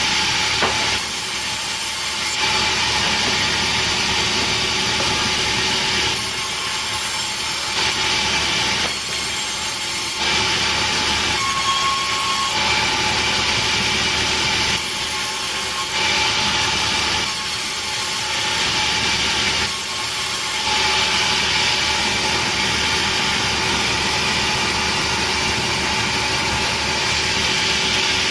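Sawmill saw running and cutting through petai wood. The cut swells and eases in alternating stretches of one to a few seconds over a steady machine noise.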